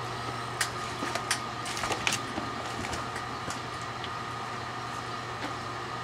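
Microwave oven running with a steady low hum. Several sharp snaps and crackles come in the first couple of seconds, then a few fainter ones, as the string lights' battery pack inside is fried and the lights go out.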